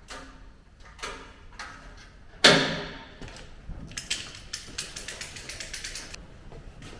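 Metal knocks on the rotisserie jig and car body, with one loud ringing metal strike about two and a half seconds in, then about two seconds of rapid, even clicking like a ratchet spanner tightening a mounting bolt.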